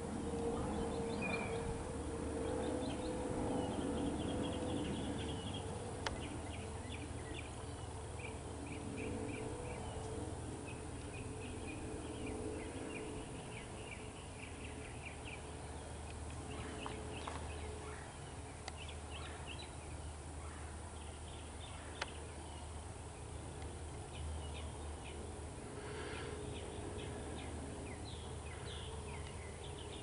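Birds chirping and calling throughout, many short high notes in quick runs, over a steady hum. Two single sharp ticks stand out along the way.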